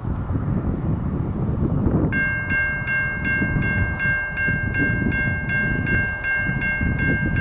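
Low-pitched Safetran Type 3 electronic crossing bell starts ringing about two seconds in, a steady repeating ding at nearly three strikes a second, as the crossing signals activate for an approaching train. A loud, uneven low rumble runs underneath.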